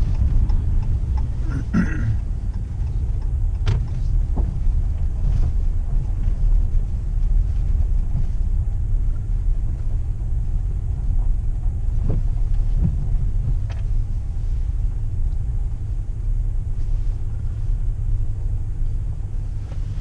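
Steady low road and engine rumble inside a moving vehicle's cabin, with a few faint clicks here and there.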